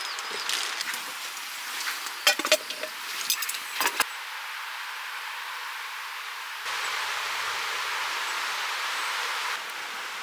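A few sharp clinks and taps of tableware and cooking utensils being handled in the first four seconds, over a steady hiss. The hiss grows louder for about three seconds from about two-thirds of the way in, then drops back.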